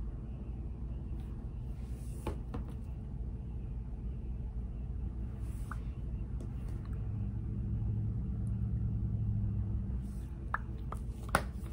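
Steady low hum of room noise, a little louder for a few seconds near the end, with a few faint clicks.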